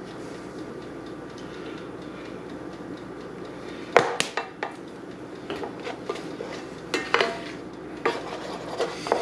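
A spoon stirring a flour-and-spice roux in a stainless steel sauté pan. From about four seconds in it knocks and scrapes against the pan in a series of sharp clacks, over a steady low background noise.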